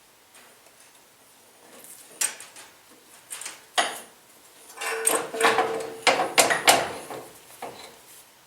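Scattered clunks, knocks and scraping of metal parts as a coilover shock is worked loose from its mounts, busiest about five to seven seconds in.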